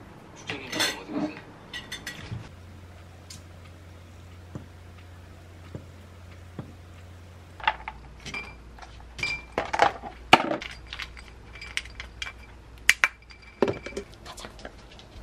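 Chopsticks clinking against a ceramic plate, then dry pet-food pellets spooned into a small ceramic bowl: a dense run of sharp clicks and rattles from about halfway through, with a couple of louder knocks near the end.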